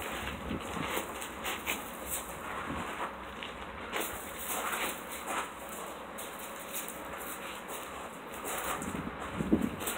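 A dog chewing and nosing a rubber ball about on gravel: scattered crunching and clicking of gravel and ball, with a brief louder sound near the end.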